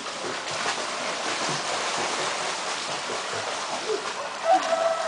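Pool water splashing and sloshing steadily around a swimmer doing breaststroke. A short louder sound comes near the end.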